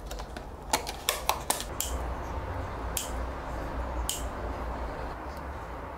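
A clear plastic herb clamshell clicking and crackling in the hands, a quick run of clicks in the first second and a half. Then kitchen scissors snip fresh rosemary sprigs twice, about a second apart.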